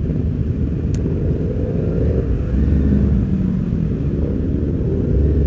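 Several sportbike engines and exhausts running at low speed in a group, including the rider's own Honda CBR250RR. A steady low rumble, with an engine note swelling and rising briefly around the middle.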